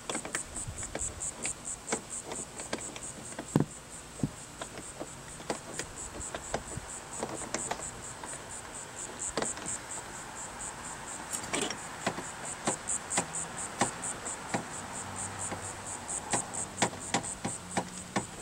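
Scattered small clicks and knocks of hand-fitted mounting hardware, a nut and lock washer worked onto a bolt from inside the hull through the speaker opening. Under it runs an even, high pulsing chirp, about three or four pulses a second.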